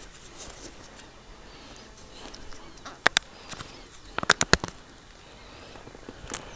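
A few sharp knocks over a faint steady background: two close together, then a quick run of four, then one more near the end.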